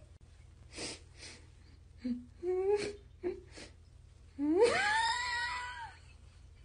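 A cat meowing: a few short, low calls near the middle, then one long meow that rises steeply in pitch and is held for about a second and a half.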